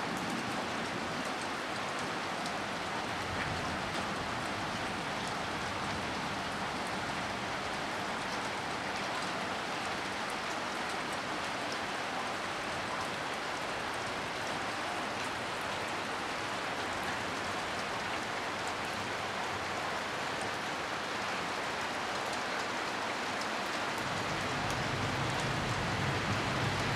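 Steady heavy rain falling on wet concrete paving, a dense hiss with many small drop splashes. A low rumble comes in and grows louder over the last few seconds.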